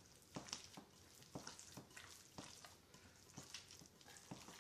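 Gloved hand squeezing and mixing chopped raw chicken with a soy sauce marinade in a glass bowl: faint, repeated wet squelches, about two or three a second.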